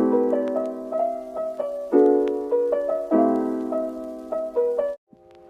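Intro background music: a soft piano piece, chords struck about every second or two under a light melody, cutting off suddenly near the end and followed by quieter held notes.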